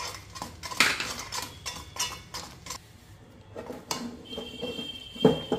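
Steel spoon scraping and clinking against an aluminium kadhai as a thick milk-powder dough is stirred, in irregular strokes with a louder knock near the end.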